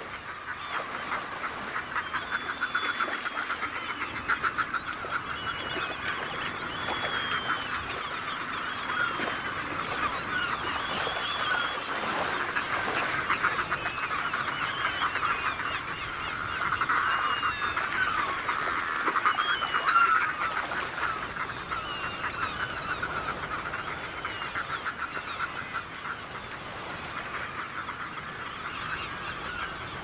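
A dense flock of northern fulmars and Laysan albatrosses squabbling over food on the water: a continuous raucous din of overlapping calls, loudest a little past the middle.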